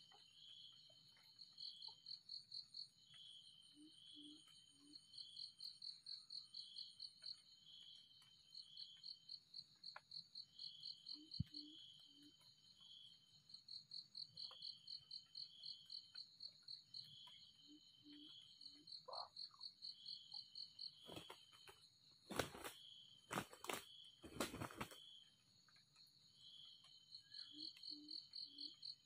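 Insects chirping in fast pulsed trains that repeat over and over, with a faint low three-pulse call coming back every several seconds. About three-quarters through there are a few short, loud rustling bursts.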